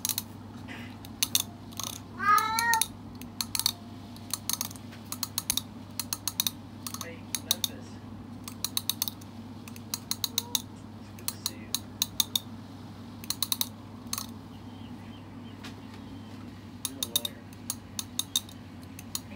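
A cat meows once, a short call about two seconds in, with a fainter call near the end. Sharp clicks sound on and off throughout.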